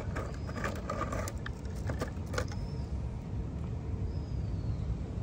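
Steady low outdoor rumble with a run of small sharp clicks and crunches over the first two and a half seconds, then only the rumble.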